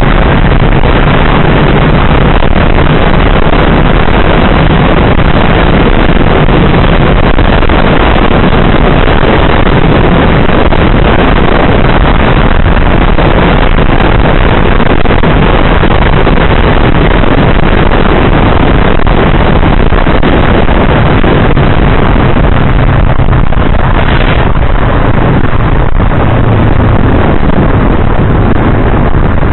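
Yamaha R3 parallel-twin with an Akrapovič slip-on exhaust running at steady road speed, its low engine hum half buried under loud, constant wind noise on the microphone.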